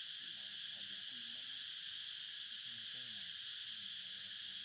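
Steady, high, continuous chorus of forest insects, with faint distant voices talking now and then underneath.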